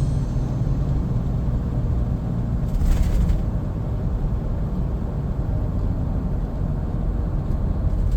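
Steady low road rumble of a car driving, with a brief hiss about three seconds in.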